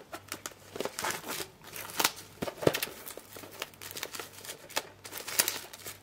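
Clear plastic shrink-wrap being picked at and peeled off a steelbook case by hand: irregular crinkling and crackling of the cellophane.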